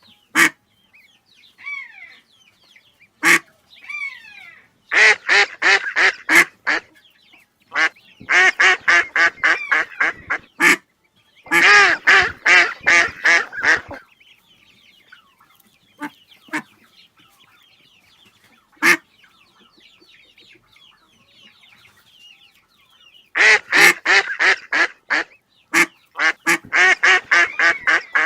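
Ducks quacking in loud rapid runs of about ten quacks each, several runs with pauses between, plus a few single quacks. Faint, higher chirping calls fill the quieter stretches.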